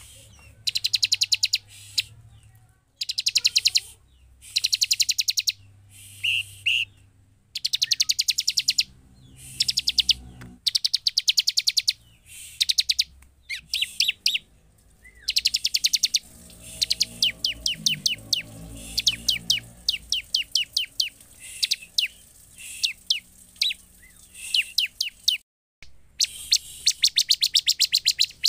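Bar-winged prinia (ciblek) calling: bursts of rapid, sharply repeated high chip notes, each burst lasting about a second, repeated again and again with short pauses between them.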